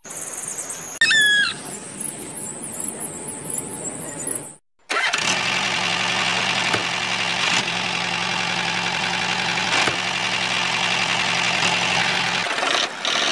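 An engine running steadily at an even pitch, cutting in abruptly about five seconds in and stopping shortly before the end. Before it comes a noisier mechanical stretch with a short squeal about a second in.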